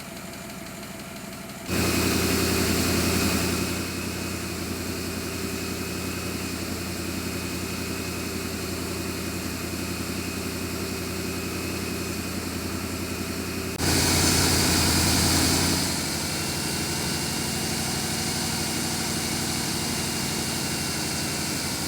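2007 GMC Sierra's V8 running at idle after a lifter replacement, with a cylinder 6 misfire that is traced to a bad ignition coil. It gets abruptly louder twice, about two seconds in and again near fourteen seconds, for about two seconds each time, then settles back to a steady idle.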